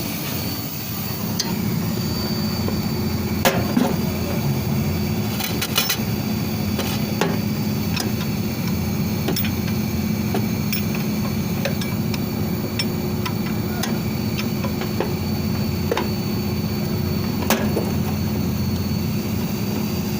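Steady mechanical drone of running machinery, with scattered sharp metallic clicks and taps, the strongest a few seconds in and again near the end.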